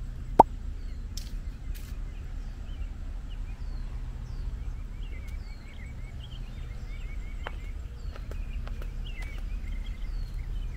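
Wild birds chirping and calling in woodland, many short repeated chirps and whistles, over a steady low rumble. A single sharp click about half a second in is the loudest sound.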